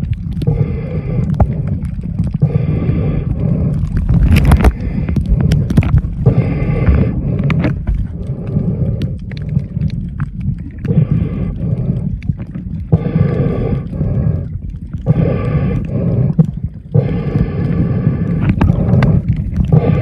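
Muffled underwater rumble with a snorkeler's breaths through the snorkel tube, coming in even turns about every one to two seconds.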